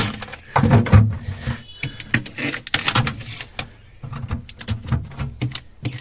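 Plastic refrigerator crisper drawer and its contents being handled, giving irregular clicks, knocks and rattles of hard plastic.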